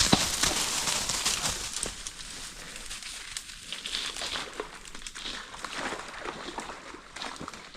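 Close rustling and crinkling with many small crackling clicks, louder for the first two seconds, then steadier and quieter.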